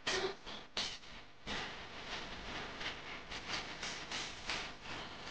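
Car driving along an open road: a steady hiss of road and wind noise, broken by irregular short hissing surges two or three times a second.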